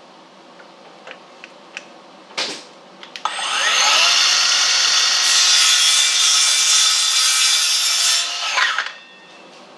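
A few light knocks of wood being handled, then an electric power saw spins up about three seconds in and runs for about five seconds cutting a wooden cross piece before winding down.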